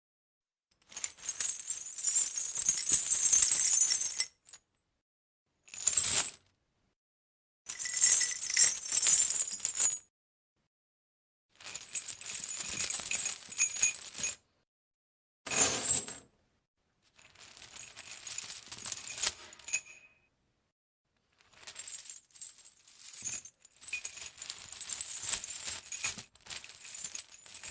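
Metal chains rattling and jingling in about eight separate shakes of one to three seconds each, with complete silence between them. Two of the shakes, one about six seconds in and one about sixteen seconds in, are short, heavier clanks.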